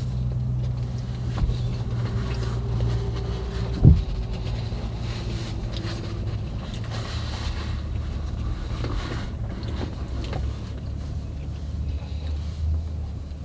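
A steady low hum, with one sharp thump about four seconds in.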